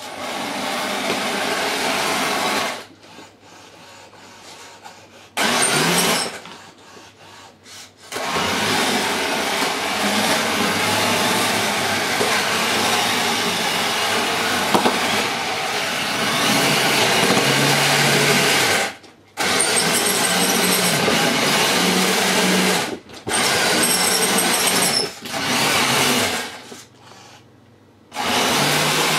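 Small electric motors and gearing of a homemade radio-controlled puppet whirring as it drives and turns. The whirring runs in long stretches that stop and restart several times.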